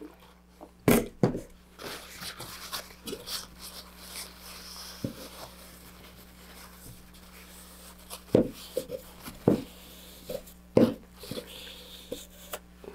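A paper towel wetted with rubbing alcohol rubbing over a fiberglass rocket part to wipe off excess epoxy, with a few sharp knocks and clicks as the parts are handled.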